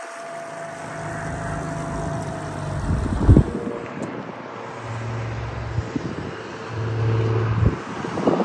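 Engine drone from a motorboat passing on the river, then from an aerobatic aircraft overhead, the hum coming and going in two stretches near the end. Wind gusts buffet the microphone throughout.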